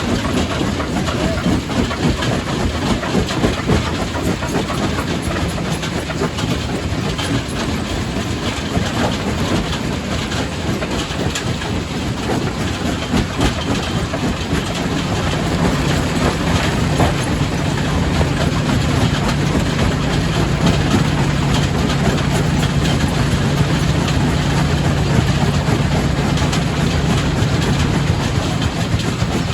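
Quarry primary rock crusher running and breaking stone: a continuous rumble with a dense clatter of rocks knocking and grinding. A steady low machine hum joins about halfway through.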